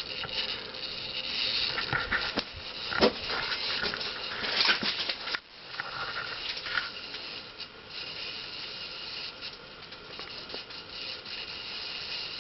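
Nutone Slimline ceiling fan's cast-aluminum spinner motor running on low with a steady bearing hiss, which the owner puts down to dirt in the bearings. A few short scratchy sounds come in the first half.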